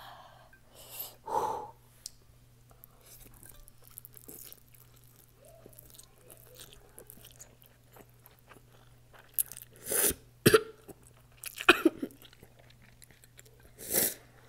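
A person eating noodles with chopsticks: chewing, with short loud slurps about a second in and several more in the last five seconds.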